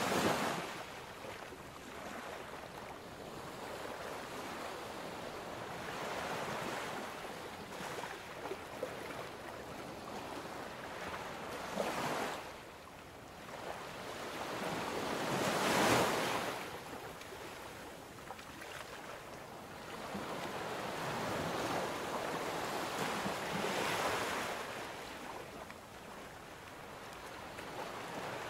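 Ocean surf: waves swell and wash out in slow surges every few seconds, the loudest about a third of the way through.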